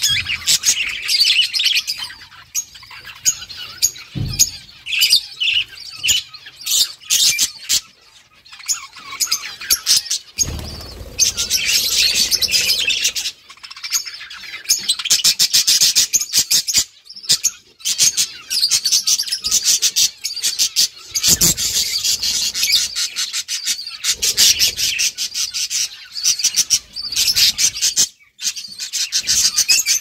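Budgerigars chirping and chattering in a dense, fast run of high chirps, with a few low thumps.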